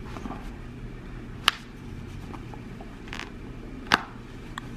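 Two sharp clicks, one about a second and a half in and a louder one near four seconds, with a soft rustle between them, as sunglass lenses and frame are handled.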